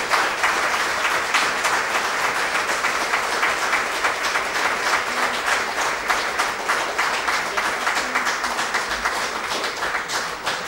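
Audience applauding, a dense patter of many hands clapping that slowly tapers off toward the end.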